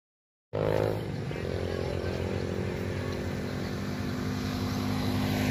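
Vehicle engine running steadily with a low, even hum, cutting in abruptly about half a second in.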